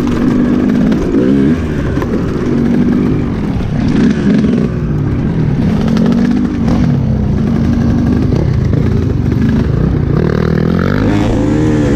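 Enduro dirt bike engine being ridden off-road, revving up and down repeatedly with constant throttle changes.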